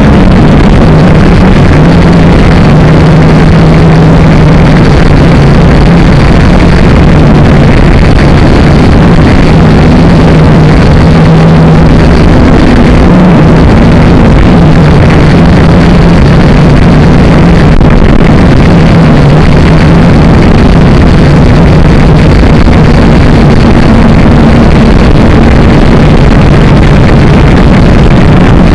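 Small quadcopter drone's electric motors and propellers, recorded by its own onboard camera microphone: a loud, steady buzzing whine whose pitch wavers slightly as the drone flies.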